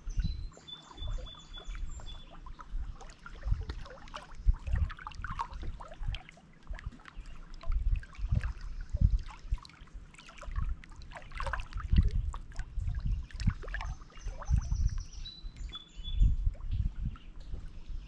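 Small lake waves lapping and splashing against shoreline rocks in irregular surges. A songbird sings a short run of high, clear notes just after the start and again near the end.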